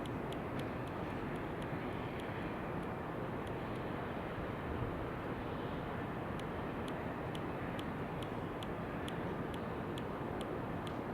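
Steady outdoor wind and white-noise hiss. Over it runs a light, regular ticking about twice a second, which fades out for a few seconds in the middle and returns.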